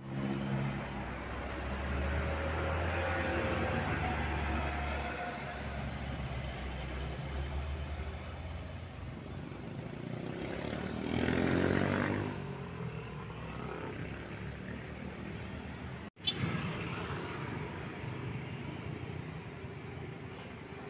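Road traffic at a junction: a heavy diesel truck engine running with a low, steady rumble, then a motor scooter passing close about eleven seconds in, the loudest moment. The sound cuts out for an instant about sixteen seconds in, then steady traffic noise goes on.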